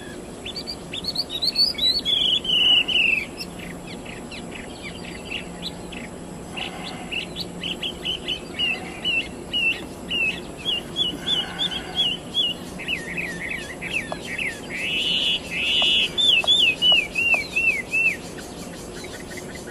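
White-rumped shama (murai batu) singing: varied clear whistled phrases, then long runs of quick, repeated up-and-down notes that stop a little before the end.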